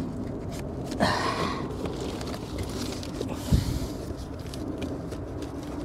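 A cardboard shipping box bound in heavy packing tape being pulled and worked open by hand. There are two rasping scrapes of tape and cardboard, about one second and three seconds in, a dull thump about three and a half seconds in, and small handling clicks throughout.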